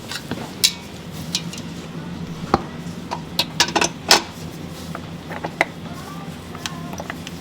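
Irregular clinks and knocks of metal utensils and bakeware handled at a work bench, over a low steady hum.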